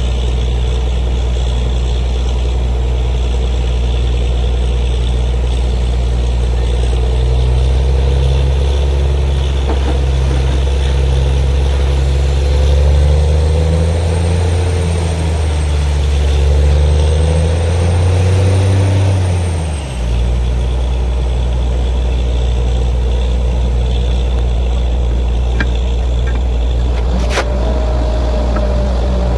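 Borewell drilling rig's engine running steadily under load, working harder for several seconds in the middle before dropping back suddenly about two-thirds through. One sharp click near the end.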